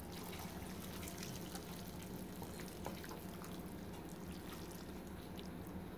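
Broth poured from a stainless steel saucepan into a bowl of greens, dripping and splashing softly, with spaghetti sliding in from the pan.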